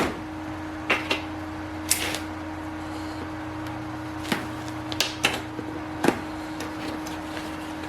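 A package being opened and handled: scattered sharp clicks and taps, about eight of them, over a steady low hum.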